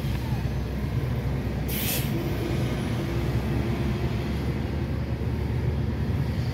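Steady low road and engine rumble inside a moving car's cabin, with a short sharp hiss about two seconds in.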